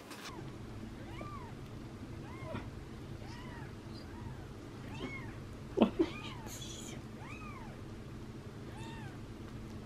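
Newborn kitten mewing, thin high calls that rise and fall, about one a second, over a steady low hum. Two brief loud knocks come about halfway.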